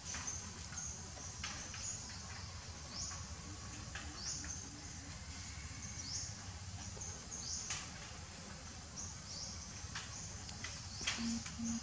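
Outdoor ambience of repeated short, high chirps that sweep up in pitch, a few each second, over a steady low rumble, with a few soft clicks.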